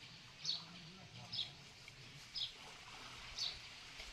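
A bird calling, four short high chirps, each dropping slightly in pitch, about a second apart.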